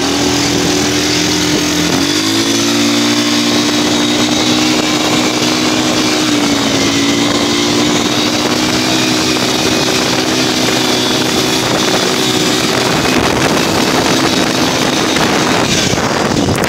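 Quad bike engine running at a steady speed under way, its pitch stepping up about two seconds in, with heavy wind rush on the microphone.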